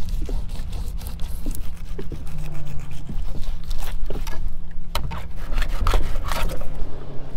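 A fillet knife cutting into a gray grunt on a plastic cutting board: short, irregular scraping and rasping strokes as the blade saws through scales, skin and flesh and scrapes the board, over a steady low rumble.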